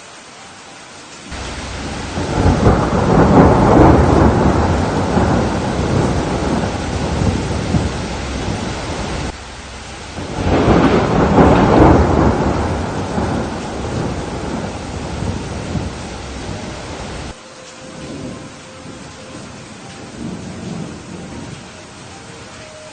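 Thunderstorm: steady rain with two long rolls of thunder, the first building about a second in and the second around ten seconds in. The storm noise cuts off suddenly about three-quarters of the way through, leaving fainter rumbles and rain.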